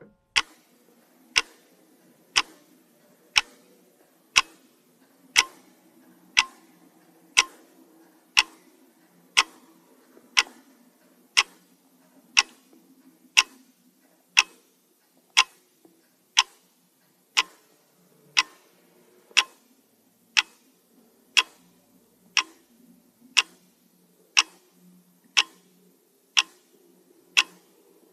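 Pendulum clock ticking steadily, about one tick a second, with a faint low hum underneath.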